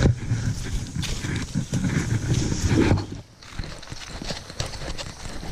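Close rustling and irregular knocks of movement and handling over dry leaf and bamboo litter, busier for about three seconds and then quieter.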